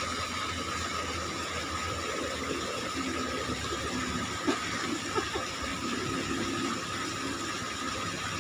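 Steady rush of flowing river water, with a faint, steady high whine and a couple of light knocks near the middle.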